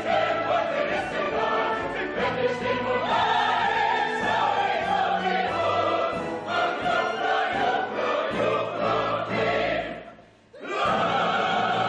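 Operetta singing: a soprano and chorus with orchestral accompaniment. The music breaks off in a short gap about ten seconds in, then resumes.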